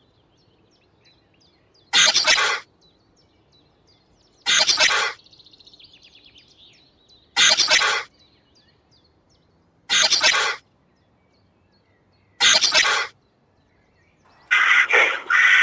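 A loud, harsh animal call repeated five times, about every two and a half seconds, with faint small bird chirps between. Near the end a faster run of loud calls begins.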